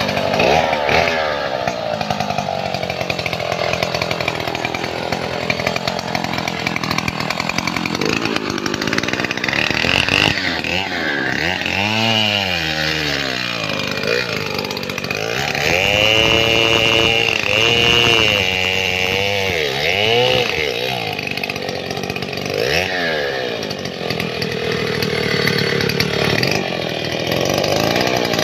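STIHL 070 two-stroke chainsaw running throughout, idling between bursts of throttle and revved up and down several times, held at high revs for a couple of seconds in the middle. Near the end it is cutting into the base of an acacia trunk.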